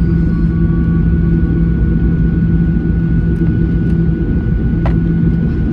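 Steady cabin noise inside a Boeing 737 airliner: jet engine and airflow noise with a constant low hum.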